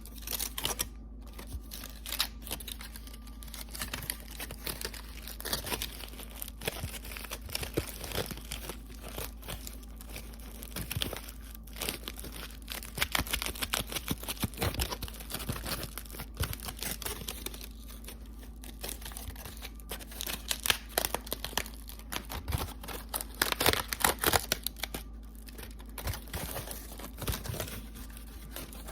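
Aluminium foil being crinkled and crumpled by hand close to the microphone: a dense, irregular crackling that comes and goes, with louder clusters in the second half.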